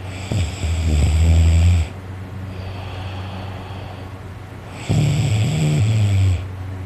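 A man snoring loud and heavy in his sleep: two long, low snores, each about a second and a half, roughly four and a half seconds apart, with quieter breathing between them.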